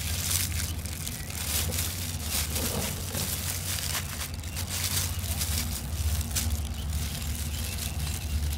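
Thin plastic food-prep gloves crinkling as marinated chicken wings are handled and pushed onto bamboo skewers, in many short crinkles and clicks. A steady low motor hum runs underneath.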